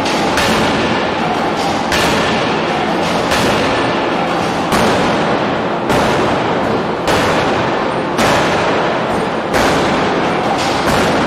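Arch-type forging hammer striking a red-hot billet, about one heavy blow every second and a quarter, over the steady loud noise of the running machine.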